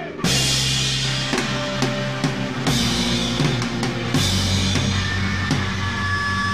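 Rock music: a full drum kit with bass drum, snare and cymbals comes in hard about a quarter second in, over held low bass notes that change twice.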